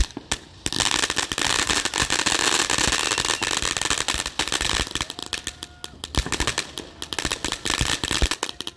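TNT Fireworks USA Rocket Fountain firework going off: a steady hiss thick with rapid crackling pops. It thins to scattered pops in the second half and cuts off suddenly near the end.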